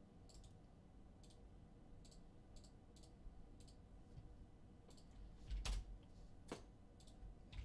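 Faint, scattered clicks of a computer mouse and keyboard as a web form is clicked through and typed into, with two louder clicks near the end.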